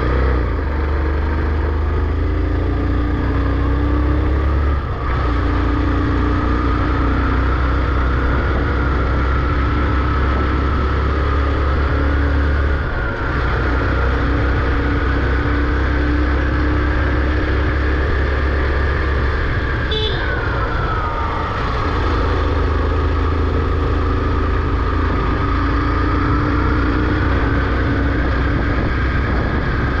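A vehicle's engine running while driving, its pitch drifting up and down with road speed over a deep low rumble. About twenty seconds in there is a click, and the engine pitch drops.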